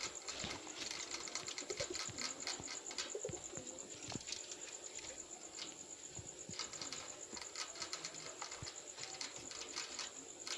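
Guinea pigs munching food and rustling, a dense irregular run of small crunches and clicks, with a steady high-pitched whine underneath.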